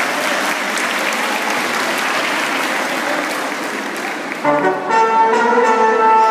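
Audience applauding steadily. About four and a half seconds in, orchestral music with held notes starts over the clapping.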